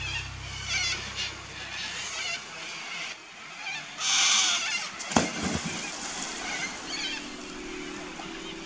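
Water splashing as a man lowers himself into a river and starts to swim, loudest about four seconds in, followed by a single sharp knock. Repeated high chirping calls sound in the first second or so.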